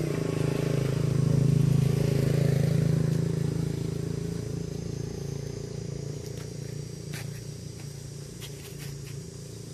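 A motor engine running steadily with a low hum, loudest in the first few seconds and then slowly fading, with a few faint clicks near the end.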